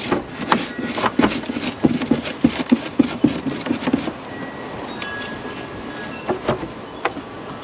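A quick run of light knocks and clicks, several a second, then only a few scattered ones after about four seconds: hand tools and parts being handled in a car's engine bay.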